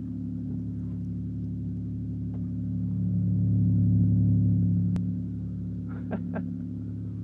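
The 1992 Chevy Cavalier Z24's 3.1-litre V6 is idling steadily after a cold start at −15 degrees. It swells louder for a couple of seconds midway, then settles back. A few short clicks come about six seconds in.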